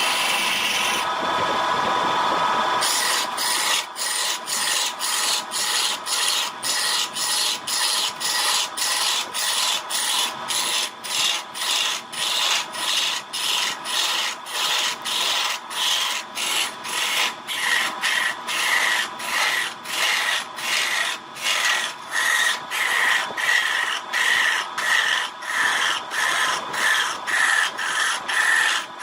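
Wood being worked by hand in quick back-and-forth strokes, about two a second, a dry rasping sound. For the first three seconds there is a steady rushing noise with a faint hum before the strokes start.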